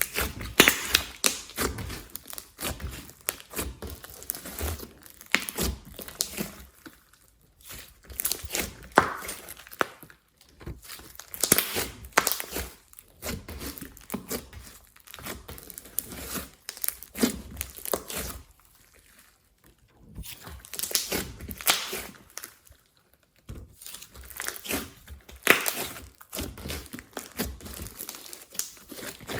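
Slime being kneaded and stretched by hand, giving bursts of wet crackling and clicking with short pauses between.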